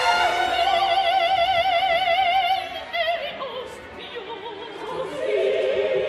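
Operatic soprano holding a long high note with a wide vibrato, then dropping away to quieter, wavering lower notes. A sustained vibrato note swells back in near the end, with orchestra beneath.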